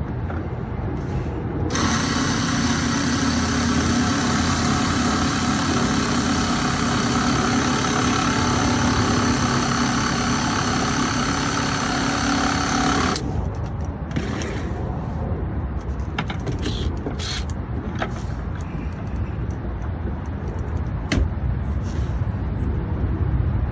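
Electric drill running steadily for about eleven seconds under load, starting and stopping abruptly, as it works a fastener into Trex decking. Afterwards come scattered light clicks and handling noise, with one sharp knock near the end.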